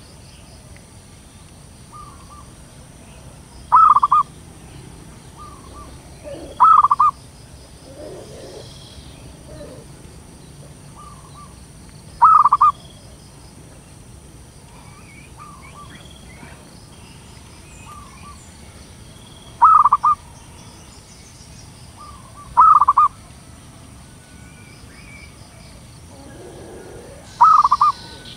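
Female zebra dove cooing: six short, loud calls at irregular gaps of a few seconds, each led by a soft short note just before it.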